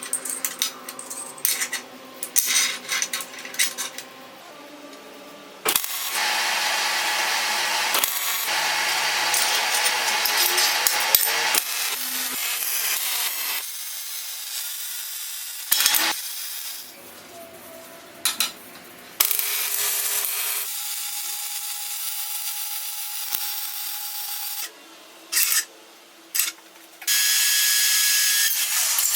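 Power tools, an angle grinder among them, working metal in a string of short clips that change abruptly every few seconds, with clinks of metal parts between them.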